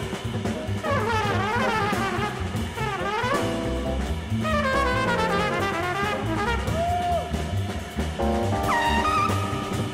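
Jazz trumpet solo over bass and drums: fast runs that sweep up and down, then a few held notes in the second half.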